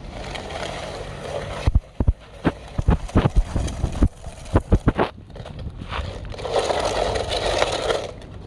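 Radio-controlled toy excavator and dump truck working dirt: a steady whirring of small motors under a run of sharp knocks and clicks, then a rushing scrape lasting about a second and a half near the end, like soil sliding or being scooped.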